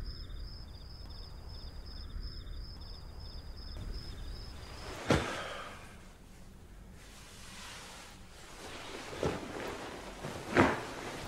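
Insects chirping at night, a fast pulsing high trill over a low rumble, which stops about five seconds in. Then, in a quiet room, three short sharp sounds come at about five, nine and ten and a half seconds, the last the loudest.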